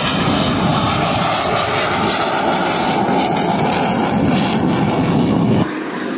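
KAI T-50B jet trainer's afterburning turbofan engine at takeoff power, a loud steady roar as the jet leaves the runway and climbs away. Near the end the roar cuts off abruptly to a quieter steady background.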